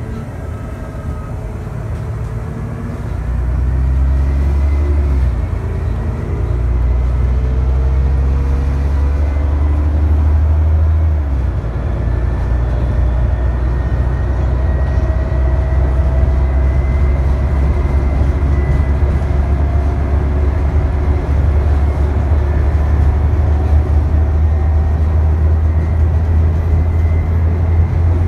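ADL Trident double-decker bus's diesel engine and driveline working hard on the move, heard from the upper deck, with a whine that rises in pitch. The engine gets louder about three and a half seconds in, and its note changes sharply again around eleven seconds in.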